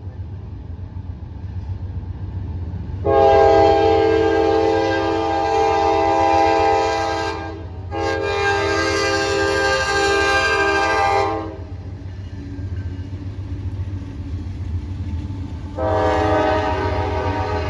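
Diesel freight locomotive air horn sounding a chord in long blasts: two long ones back to back, a pause of several seconds, then a third that is still sounding at the end. A steady low rumble of the passing train runs underneath.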